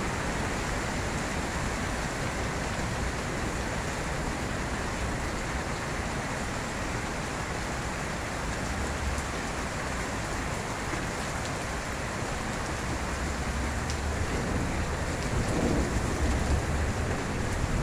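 Heavy rain mixed with hail coming down on the street and porch, a steady hiss, with low rumbles now and then about halfway through and near the end.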